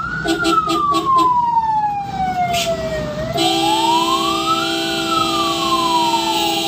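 Ambulance siren in a slow wail, its pitch climbing and falling over several seconds. Near the start come five quick short beeps, and about halfway a steady, buzzy held tone joins in under the wail.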